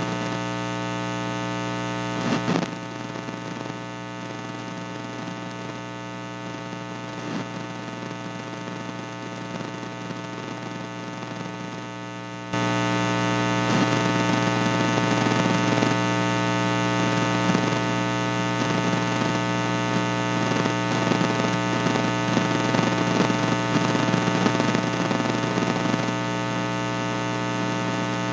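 Steady electrical mains hum, a buzz with many overtones and no speech. It drops in level about two and a half seconds in and jumps back louder about twelve seconds in.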